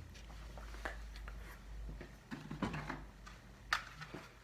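Faint handling sounds of thermostat wires being pushed back into a wall hole and handled, with small scattered clicks and rustles and one sharper click near the end.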